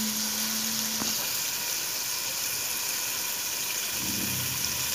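Tomato masala frying in oil in a pan, a steady sizzle, with a single light tap about a second in.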